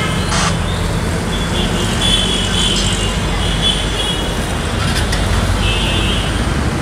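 Steady city street traffic noise: a low rumble of motor engines running, with shrill high tones sounding over it from about a second and a half in and again briefly near the end.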